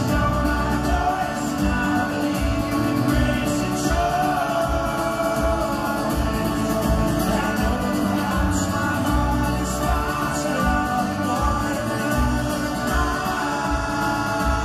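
Live folk-rock band playing, heard from the arena seats: strummed acoustic guitar, keyboard and a driving kick drum, with singing.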